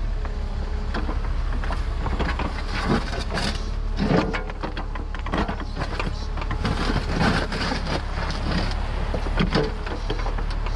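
Mini excavator engine running steadily while the bucket digs, with repeated irregular scrapes and knocks of the bucket in soil and stones.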